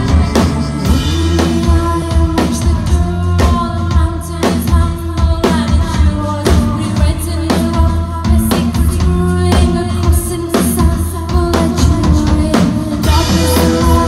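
Live rock band playing loud: electric guitar, bass and a drum kit keeping a steady beat, with a woman singing into the microphone.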